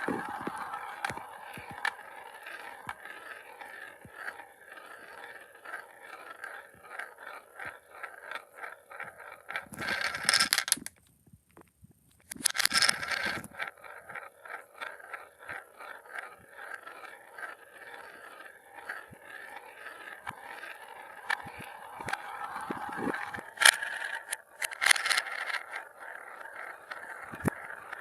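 Marbles rolling and spinning around the funnels of a marble run: a steady rolling whirr with many small clicks, and a few louder clatters as marbles drop and knock together. There is a brief near-silent break about eleven seconds in.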